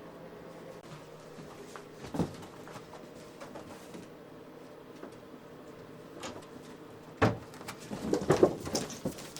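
Wooden armoire door being opened and knocked about by a capuchin monkey. There is a single knock about two seconds in, then a loud thump about seven seconds in, followed by a quick run of knocks and rattles.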